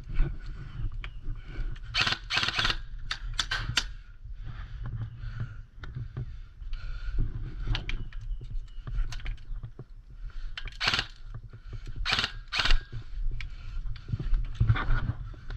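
Rustling and handling noise over a low rumble, with several short scraping bursts and scattered small clicks.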